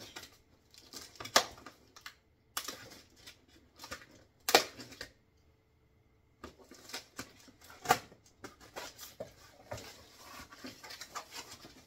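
Cardboard box being unpacked: packing tape slit with a utility knife and the cardboard flaps handled, making an uneven run of scrapes and clicks. Three sharp knocks stand out, about a second and a half in, at four and a half seconds and near eight seconds.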